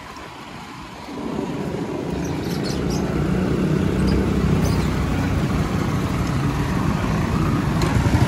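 Steady rumble of riding a bicycle along a city street, mostly wind buffeting the microphone, swelling about a second in as the bike picks up speed, with motor traffic around.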